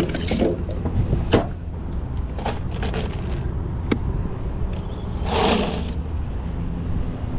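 Clicks and knocks of a jet ski's storage hatch and a plastic cooler being handled, then a rattle of ice about five seconds in as a large fish is moved in the cooler. A steady low hum runs underneath.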